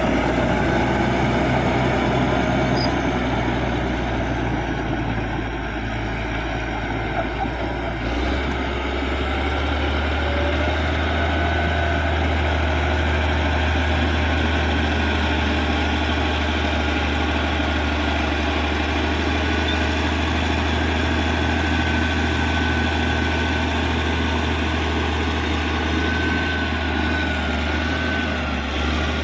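Caterpillar D6G bulldozer's diesel engine running steadily under work, its low note shifting about eight seconds in, with a faint wavering whine above it.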